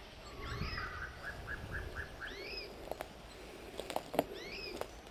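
Small songbird singing: a quick trill of about seven repeated notes, with rising, arching whistled notes about three times, the last near the end. A few sharp snaps and rustles of footsteps in dry undergrowth.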